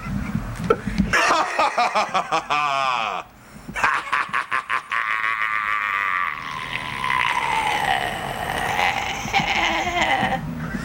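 A man making a long, drawn-out comic vocal noise: a rattling, wavering stretch, a short break about three seconds in, then one long held note that sinks in pitch before it ends.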